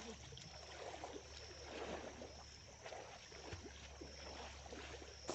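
Faint river water moving and lapping, in gentle swells.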